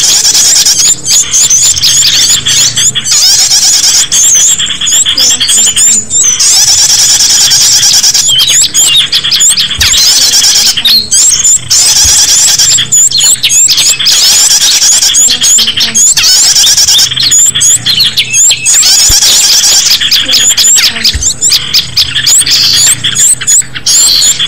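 Small-bird lure call track: dense, shrill chirps and rapid squeaky whistles from small birds, loud and continuous, played to draw small birds in for catching.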